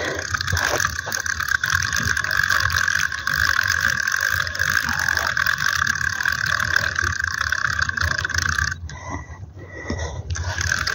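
Spinning reel cranked steadily to reel in a hooked fish: a continuous gear whir with fast fine ticking. It breaks off about nine seconds in, then starts again near the end.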